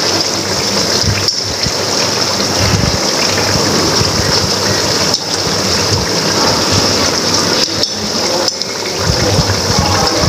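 Chicken and tomatoes cooking in oil in a karahi over a gas flame, giving a steady sizzling hiss.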